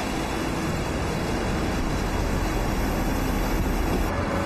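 Steady car engine and road noise with a low rumble.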